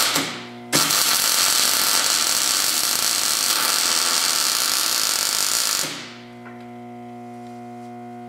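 Electric arc welding a short bead on a steel truck frame crossmember: a brief burst of welding right at the start, then a steady hiss of about five seconds that cuts off sharply. Low background music with held notes plays before and after the weld.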